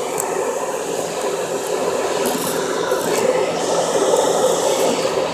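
Smart car 451's electric fan running with a steady whir and a few brief high squeaks, which the owner believes are its bearings about to fail.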